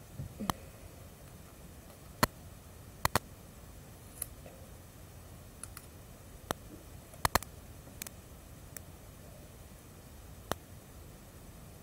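About a dozen sharp, irregular clicks and ticks from handling a small piece of sticky tape with the fingers, over a faint room hiss.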